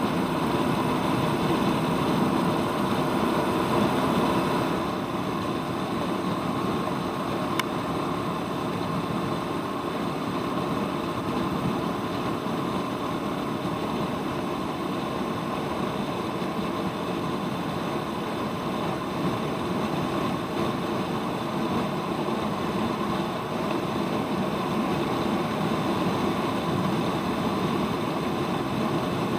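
Royal Enfield Meteor 350's single-cylinder engine running steadily with the motorcycle under way, mixed with wind and road noise. The hiss eases a little about five seconds in.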